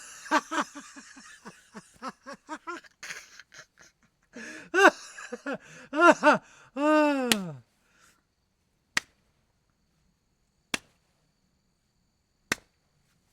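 A person laughing in quick rhythmic bursts, ending in a long falling voice sound about seven seconds in. Then three sharp single clicks follow, a little under two seconds apart.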